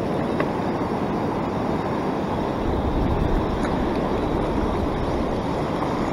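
Steady rush of ocean surf washing around a wading angler, with wind rumbling on the microphone.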